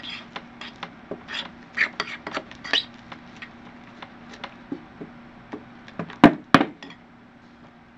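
A utensil scraping and clicking against a bowl while stirring thick homemade slime, with two sharp knocks about six seconds in.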